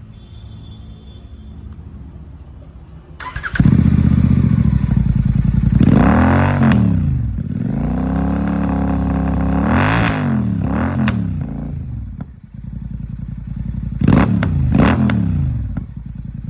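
Royal Enfield Continental GT 650 parallel-twin engine through a Red Rooster 2-into-1 performance exhaust. It idles, gets much louder about three and a half seconds in, and is then blipped about five times, each rev rising and falling back. Sharp cracks follow the later blips: the exhaust crackling on the overrun after revving past about 4,000 rpm.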